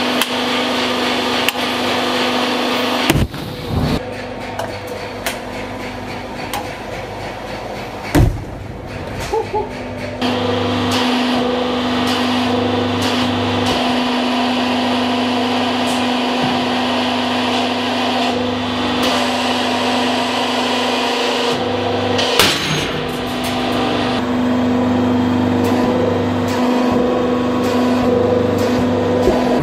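Hydraulic press running with a steady pump-motor hum while objects are crushed under the ram, broken by a few sharp bangs and cracks, the loudest about three-quarters of the way through.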